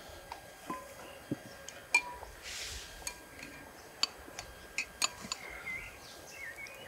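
Metal spoons clinking and scraping against ceramic soup bowls and other tableware during a meal: scattered separate clinks, the loudest about two seconds in.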